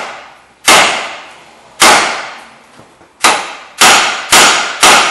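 Hammer blows on the steel steering knuckle of a 2001 Pontiac Grand Am: six sharp metal clangs, each ringing and dying away, the last four coming faster, about two a second. The raps shock the outer tie rod end's tapered stud loose from the knuckle.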